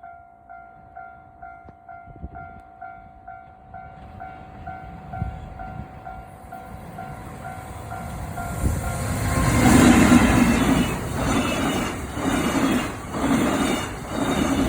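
Japanese level-crossing alarm ringing at about two strokes a second as a freight train hauled by an EF210 electric locomotive approaches. The train grows loud about two-thirds of the way in. Its wagons then pass with a regular clatter of wheels over the rail joints, about once a second.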